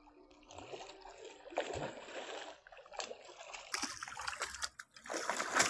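A big hooked rohu splashing and thrashing at the water's surface while being played on the line, in several irregular bursts that grow loudest near the end.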